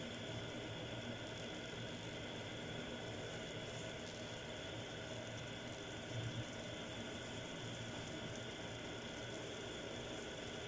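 Prawns, mussels and calamari with onions cooking in a pan over raised heat, a steady sizzle.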